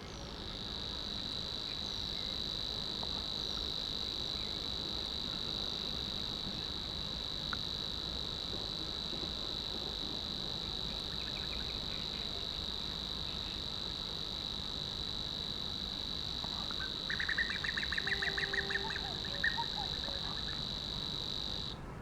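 Nightingale cricket singing: one continuous high trill held steady, cutting off suddenly just before the end. From about 17 to 19.5 s a louder run of rapid, lower-pitched pulses sounds over it.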